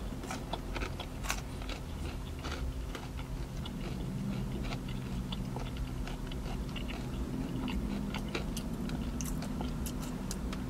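Close-up chewing of crispy fried fish, with many small crunches and wet mouth clicks, over a steady low hum.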